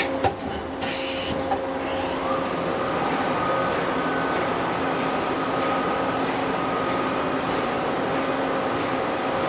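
Doosan Daewoo Puma 2000SY CNC lathe running, a steady mechanical hum. About two seconds in, a motor whine rises in pitch and then holds steady, with a few light clicks in the first second and a half.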